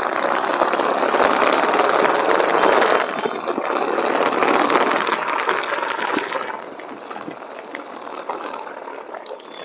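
Wind and road noise rushing over the microphone of an action camera on a moving bike, with a light mechanical rattle. The rush eases off about two-thirds of the way through.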